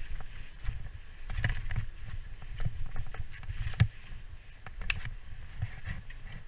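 Handling and movement noise from a body-worn camera: a steady low rumble with scattered sharp clicks and knocks, about one a second, as the climber shifts at the roof edge.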